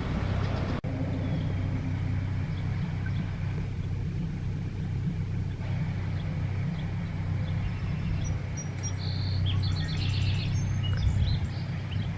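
Steady low outdoor rumble, with a bird chirping in quick, high notes about two-thirds of the way through.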